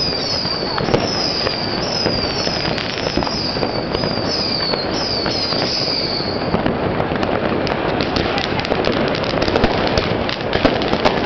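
New Year's Eve fireworks and firecrackers crackling and banging continuously. A high, repeated falling whistle sounds through the first half. Sharp bangs grow more frequent toward the end.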